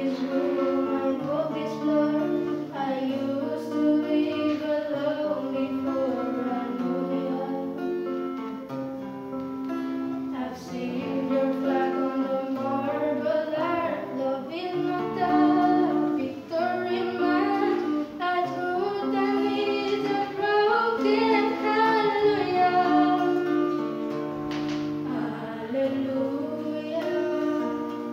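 A teenage girl singing a song into a microphone, accompanied by an electric guitar strumming held chords.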